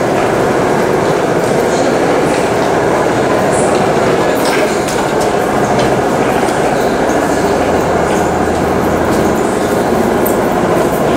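Subway train running: a steady, loud rumble and rattle with scattered clicks.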